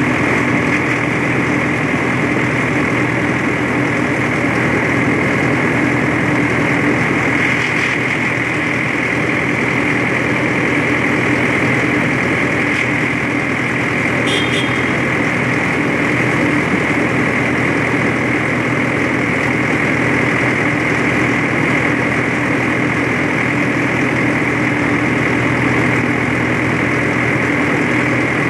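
Massey Ferguson road-rail tractor's engine running steadily as it travels along the railway track, heard from on board, with an even, unchanging drone.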